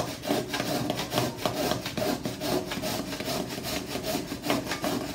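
Stick of sidewalk chalk being scraped down a metal box grater in quick, repeated strokes, grinding the chalk to powder.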